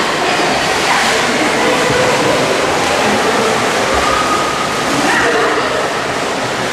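Echoing indoor swimming pool: a steady wash of water noise as a child splashes along on a foam noodle, with faint distant voices in the hall.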